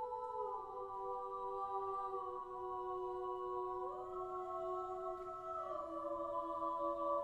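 Small mixed SATB a cappella choir singing soft, slow sustained chords that move to new pitches every few seconds.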